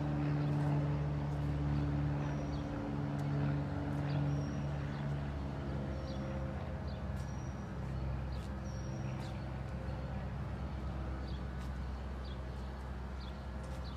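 A vehicle engine running with a steady low hum that fades away after about five seconds. Short, faint high chirps sound throughout.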